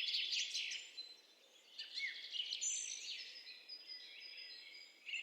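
Several small birds chirping and calling, with quick high chirps, a few short whistled notes and glides, and a brief lull about a second in.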